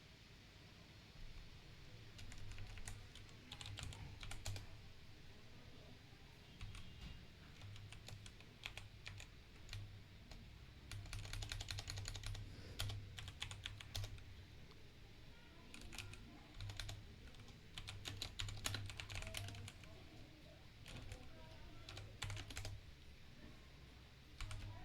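Typing on a Kreo computer keyboard: runs of rapid keystroke clicks with short pauses between them, as a search or code is typed in.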